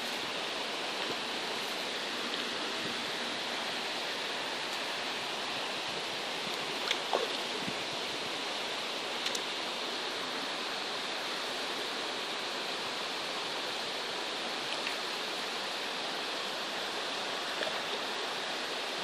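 Running water of a shallow stream flowing steadily, with a few faint short ticks now and then.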